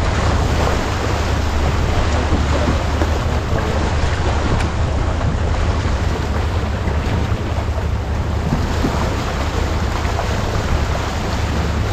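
Steady wind noise buffeting the microphone over the rush of water along the hull of a Farr 280 sportsboat under way.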